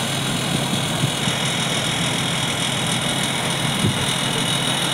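Heavy recovery truck engines running steadily at idle, an even drone.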